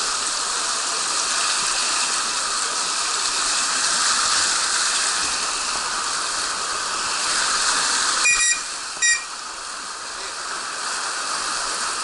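Water rushing down the start of a water slide chute in a steady hiss. About eight seconds in, two short shrill blasts of a lifeguard's whistle, after which the rushing is a little quieter.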